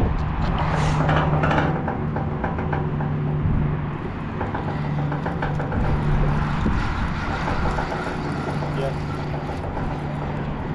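A vehicle engine drones steadily, a low even hum with rushing noise beneath it.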